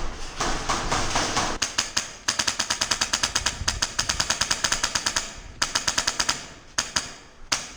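Airsoft gun firing full-auto: a rapid rattle of about a dozen shots a second lasting roughly three seconds, then a shorter burst and a couple of single shots.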